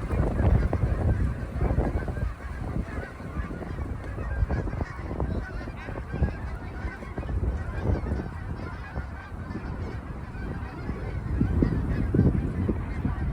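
A flock of geese honking, many short calls overlapping continuously, growing somewhat louder near the end.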